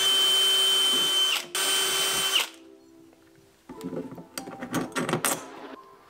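Cordless drill/driver running steadily with a high whine as it drives the screws holding a metal exhaust fitting to a plastic case. It cuts out briefly just over a second in and stops about two and a half seconds in. Small metal screws and washers then clink and rattle as they are handled.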